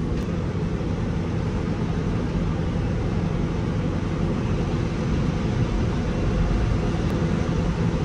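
Tractor engine running steadily, a low even rumble with a constant hum, heard from inside the cab with the door open.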